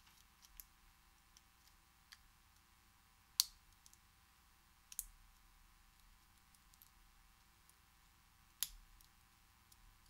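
Faint metallic clicks of a hook pick lifting the pins in a Master Lock No. 15 padlock's cylinder under heavy tension during single pin picking. The clicks are sparse and irregular, with three sharper ones about a third of the way in, halfway and near the end.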